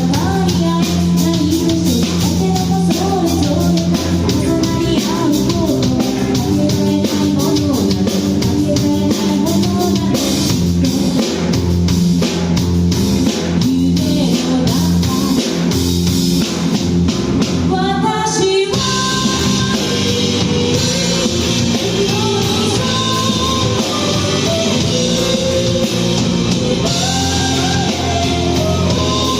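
Live rock band playing a loud song on electric guitar, bass and drum kit, with a singer. There is a brief break about two-thirds of the way through before the band comes back in.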